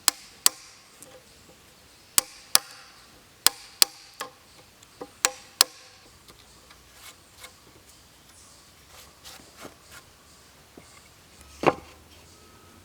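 Hammer blows on a chisel, chopping the waste wood out of dados cut in pressure-treated 4x4 legs. About ten sharp strikes come in the first six seconds, then a few light taps, and one more heavy blow near the end.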